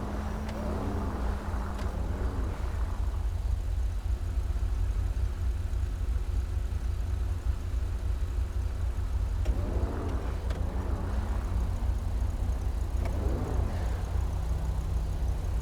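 Twin-turbocharged LS7 V8 of the Mazzanti Evantra Millecavalli running with a steady deep rumble, its pitch briefly rising and falling in short revs about a second in, around ten seconds and again near the end.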